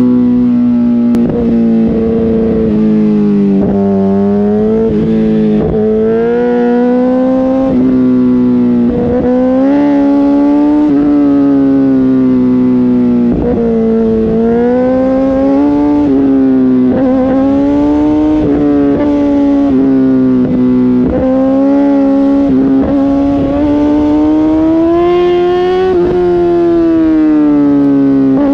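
Suzuki GSX-R1000R's inline-four engine running hard through its exhaust. The pitch rises and falls over the bends, and the note breaks off briefly now and then.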